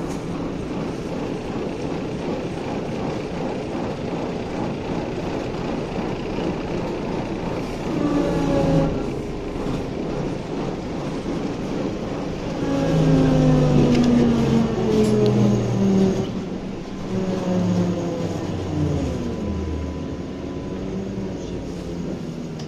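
BTZ-5201 trolleybus riding with a steady rumble of wheels and body. Its electric traction drive whines, gliding in pitch about eight seconds in, then louder and falling in pitch from about thirteen to twenty seconds as the bus slows.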